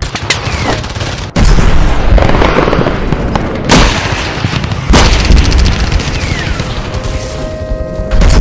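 Battle sound effects: continuous gunfire with three heavy explosions and deep rumbles, about a second and a half in, near five seconds and near the end. Falling whistles lead into the first and last blasts.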